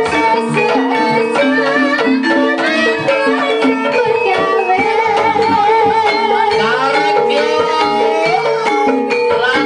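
Javanese gamelan music for an ebeg dance: kendang hand drums, gongs and bronze metallophones playing a steady repeating pattern, with a wavering melody line above them.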